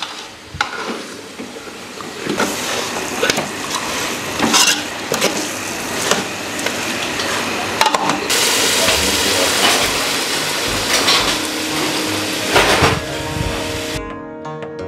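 A metal ladle scraping and knocking against a metal pot while stirring potatoes, cauliflower and peas into a thick masala, over a steady sizzle of the mix frying. Music comes in near the end.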